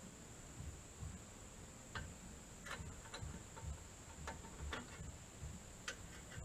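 Scattered sharp metallic clicks and clinks, about six of them, from a wrench working on the Jeep's exhaust while a turbo whistle is fitted, over a steady high-pitched hum.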